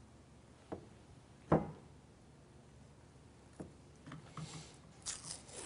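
Handling noises from working a vinyl gun skin on a shotgun stock with a craft knife. Three knocks, the loudest about a second and a half in, then from about four seconds on a faint scratchy rustling of the vinyl film being trimmed and rubbed down.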